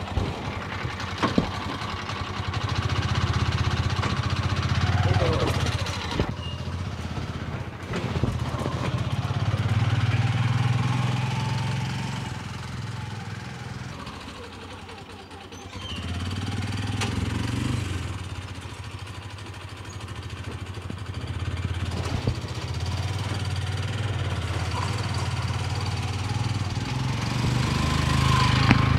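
The small motorcycle-derived engine of a home-built Willys-style jeep running as the jeep drives off. Its sound swells and eases several times as the throttle is opened and closed.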